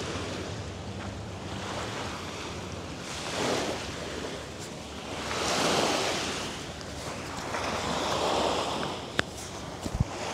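Small waves washing onto a beach, swelling and falling about every two and a half seconds, with wind buffeting the microphone. A sharp click near the end.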